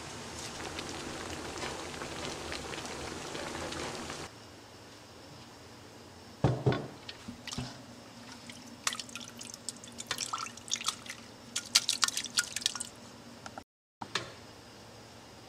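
Red wine and onions simmering in a stainless stockpot. After about four seconds this gives way to scattered wet drips and splashes of the thick red sauce, with sharp clicks of a metal ladle against the pot.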